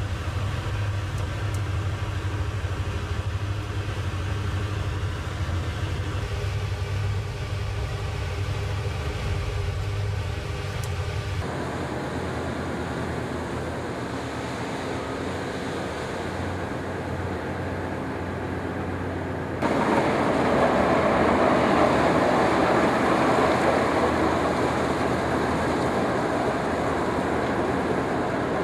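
Ferry engines running, a steady low hum with even tones above it heard inside the passenger cabin. After abrupt changes partway through, the steady drone continues from the open deck, joined in the last third by a louder, even rushing noise.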